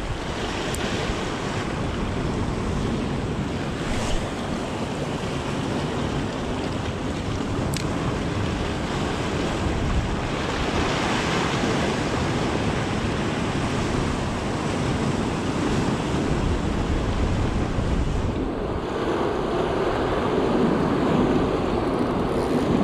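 Sea surf breaking and washing over rocks, rising and falling in surges, with wind buffeting the microphone.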